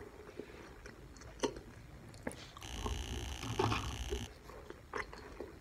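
Faint chewing of fast food, with a few soft mouth clicks. Midway a faint steady hiss with high tones comes in for about a second and a half.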